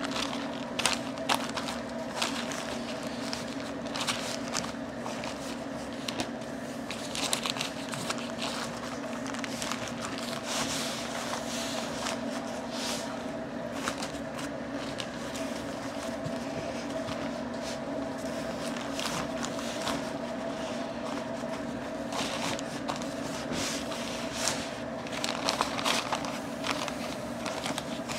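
Pink butcher paper crinkling and rustling in irregular bursts as gloved hands fold and roll it around a smoked brisket, over a steady low hum.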